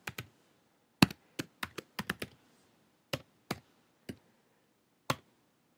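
Typing on a computer keyboard: about a dozen separate key clicks at an uneven pace, a quick run of them about a second in, then a few spaced taps.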